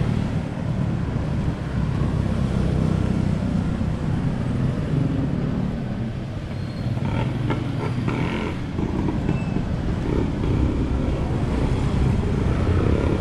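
Road traffic: vehicle engines running in a steady low rumble, with a few short clicks about seven seconds in.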